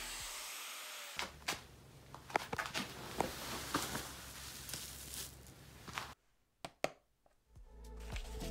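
Scattered crunching, rustling and sharp clicks of handling and movement in a small workshop. The sounds break off into near silence for about a second and a half after six seconds, and music begins to fade in near the end.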